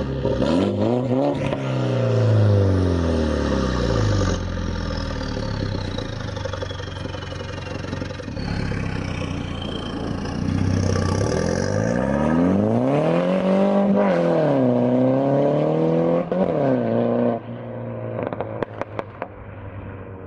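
Straight-piped 2015 Mini Cooper S turbocharged four-cylinder, with a catless downpipe, revving up and down. Near the end the revs drop suddenly and the exhaust gives a string of sharp pops and crackles.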